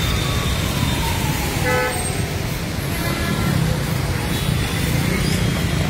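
Road traffic driving through a flooded street: a steady rumble of car and motorcycle engines with the wash of tyres through standing water. A couple of short car horn toots sound near the middle.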